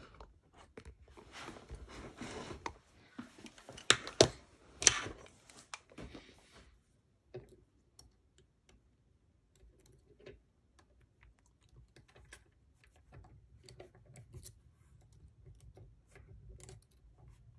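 Rustling and clattering at a workbench, with three sharp knocks about four to five seconds in. Then faint, scattered clicks of a lock pick and tension tool working the pins of a drilled euro cylinder clamped in a vise.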